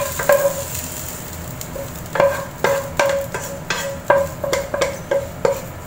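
Metal spatula scraping and knocking inside a wok, about a dozen irregular strokes, each leaving the pan ringing briefly, over a steady low hiss.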